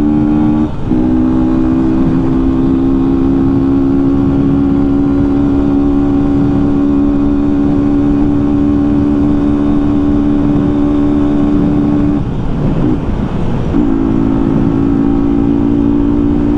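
Yamaha Fazer 250's single-cylinder engine running without its air filter, pulling at steady revs under load on a climb, with wind noise. The engine note drops out briefly about a second in, and again for about a second and a half near twelve seconds, before picking up again.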